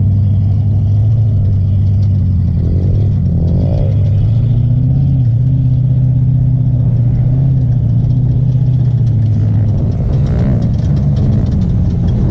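ATV engine idling steadily close by, with a slight rise in pitch about four seconds in.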